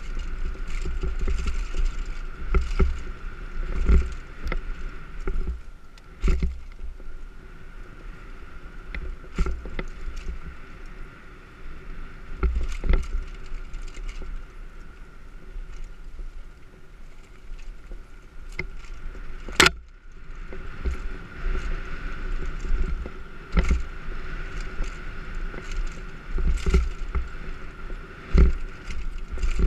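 Specialized Demo 8 downhill mountain bike descending a rough dirt trail: wind rumbling on the microphone, tyres running over dirt, and frequent rattles and knocks from the bike over bumps, with one sharp clack about two-thirds of the way through.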